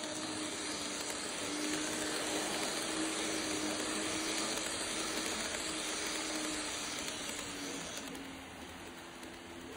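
Model electric trains running on a layout's track: a steady whirring hiss of wheels on rail with a faint motor hum whose pitch drifts slightly. The sound eases off about eight seconds in as the running slows.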